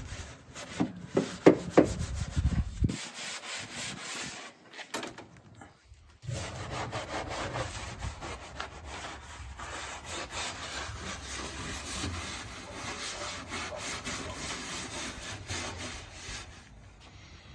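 Scrubbing and rubbing in irregular strokes, cleaning the first layer of dirt out of a car's front trunk compartment ahead of sanding. There are a few sharp knocks in the first two seconds and a quieter stretch from about three to six seconds in.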